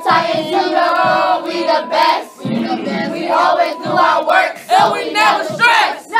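A group of young voices chanting and shouting together over backing music.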